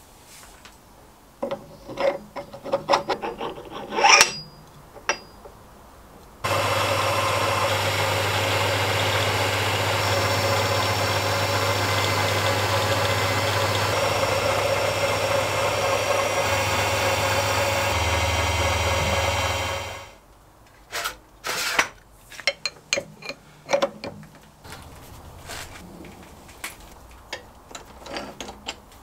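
Halifax 524 metal lathe running steadily for about fourteen seconds, starting and stopping abruptly, between clinks and knocks of metal parts being handled and fitted on the lathe.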